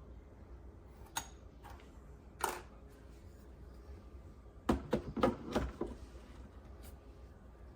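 Scattered sharp clicks and knocks, with a quick run of louder knocks about five seconds in.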